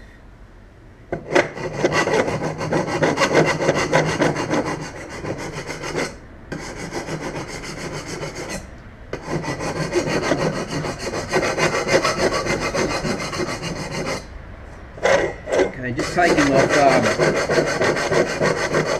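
Hand file rasping across a metal Studebaker headlight reflector bowl in rapid back-and-forth strokes, taking off a raised lip. The filing starts about a second in and runs in long stretches, with brief pauses twice and a longer lull near the end before it picks up again.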